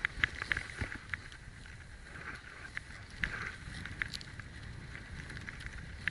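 Splitboard riding down through deep powder snow: a steady rush of snow spray and wind buffeting the microphone, with scattered sharp clicks and knocks.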